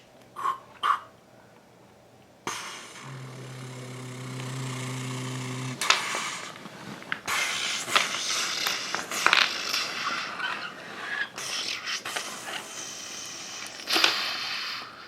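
Two light clicks, then a steady low motor-like hum for about three seconds, followed by a long run of knocks and clatter as toy building blocks are knocked down and tumble.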